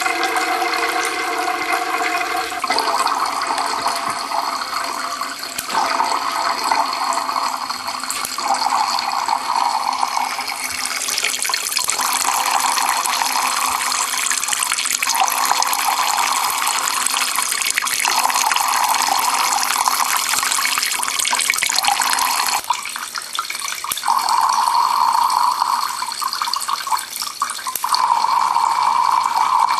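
Thin streams of water from a home-made Kelvin water dropper falling through the collectors into tin cans: a steady running-water splash that changes in tone several times.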